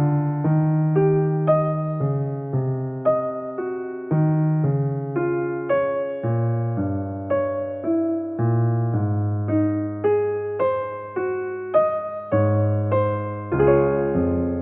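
Soft background music: a gentle electric piano melody of struck notes, each fading out, over a sustained bass line.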